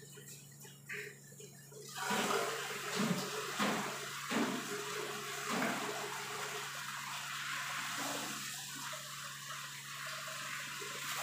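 Water running steadily, starting suddenly about two seconds in, over a low steady hum.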